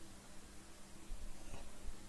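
Quiet room tone: a faint hiss with a low, steady hum underneath.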